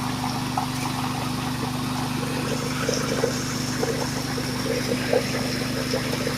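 Coffee hulling machine running steadily: a constant low drone from its motor under an even rushing noise, with scattered small ticks.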